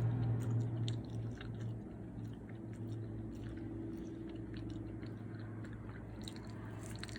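A person chewing a mouthful of oatmeal banana pancake, with soft, irregular mouth clicks over a steady low hum.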